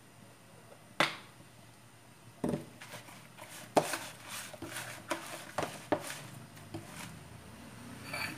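Kitchen handling sounds: a sharp knock about a second in, then a run of lighter knocks and clicks from about two and a half to six seconds, as hands work seasoning into raw fish in a plastic tub on a stone countertop.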